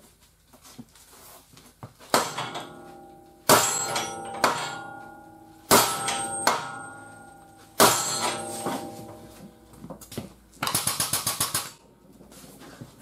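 Heavy metal-on-metal strikes on a chained frame-pulling rig, six in all, a second or so apart, each ringing out and fading. Near the end comes a rapid rattling burst lasting about a second.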